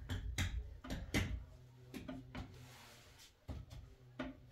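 Several irregular knocks and clatters, the loudest two in the first second and a half, over a low steady hum.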